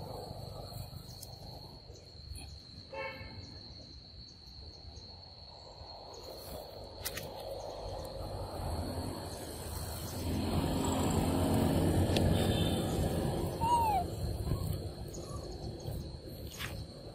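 Outdoor ambience with a steady high-pitched insect drone, a brief call about three seconds in and a short falling squeak near the end. A low rumble swells for a few seconds past the middle and is the loudest sound.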